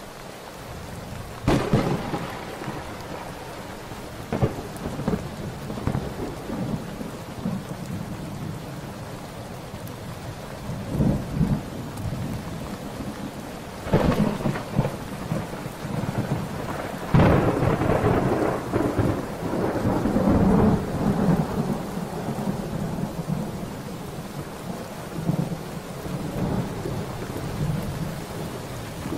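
Thunderstorm: steady heavy rain with several sudden cracks of thunder, the biggest past the middle giving way to a long rolling rumble.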